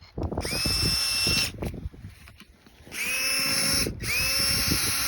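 Cordless power drill running in three bursts, each whine sweeping up to speed and then holding, with irregular low knocking and crunching underneath.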